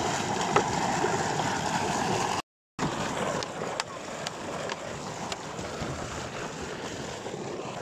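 Tube well outlet pipe gushing water under pressure into a concrete tank, a steady rushing, with a plastic can being filled in the stream; a few light clicks come a little after the middle. The sound cuts out completely for a moment about two and a half seconds in.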